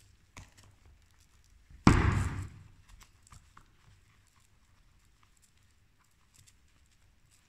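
Handling noise from a Mystic Majestic X kitesurf harness: small clicks and rustles of the webbing strap and buckle as the strap is threaded, with one loud thud about two seconds in.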